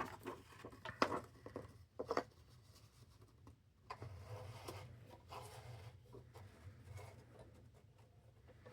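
Faint paper rustling and rubbing, with a few sharp clicks in the first two seconds, as a sheet is fed into an electronic typewriter.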